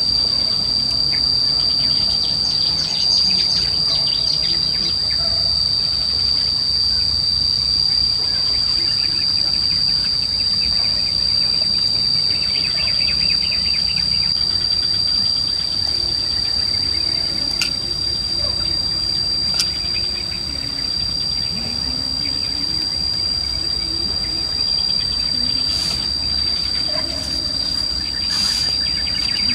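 Steady high-pitched insect drone of the kind cicadas or crickets make, with a few bird chirps over it. A low, even background noise runs underneath.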